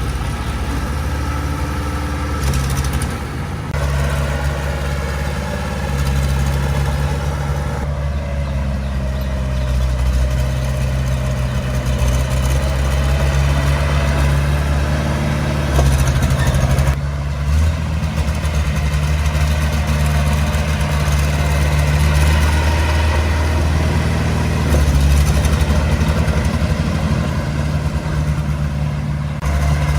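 A heavy-equipment diesel engine running steadily, its loudness and pitch shifting several times as the load and engine speed change.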